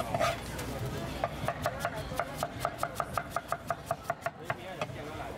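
Cleaver slicing a peeled guava into thin wedges on a wooden cutting board: quick, even knocks of the blade against the board, about five or six a second, starting about a second in and stopping near the end.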